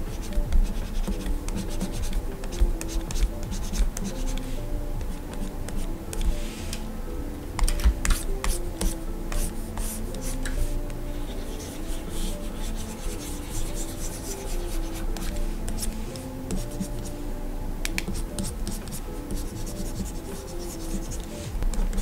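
Stylus nib scratching and tapping across the screen of a Gaomon PD2200 pen display in short strokes, with a few sharper taps, over soft background music with a slow stepping melody.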